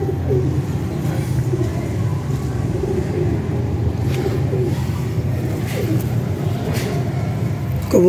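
Domestic pigeons cooing, short rolling coos recurring every second or so over a steady low hum.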